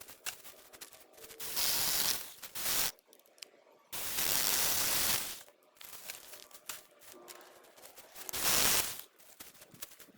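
Cordless mini chainsaw cutting wood in three short bursts, each a loud rasp of the chain biting through, with the saw quieter between cuts.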